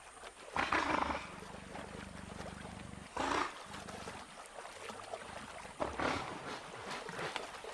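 Wild animal calls: short harsh bursts about every two and a half seconds, between a jaguar and giant otters on the riverbank.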